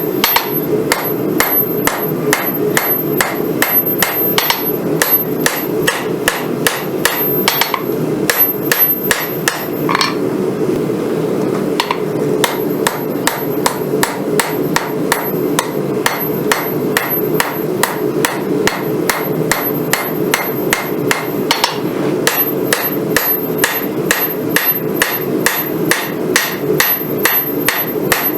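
Hand-hammering a hot Damascus steel billet on an anvil: a steady run of ringing hammer blows, about two to three a second, with a brief pause about ten seconds in, over a steady low rushing noise.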